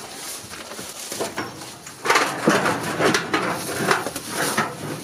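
Irregular clattering and rustling as someone pushes through dry weeds between corrugated iron sheets, starting about two seconds in.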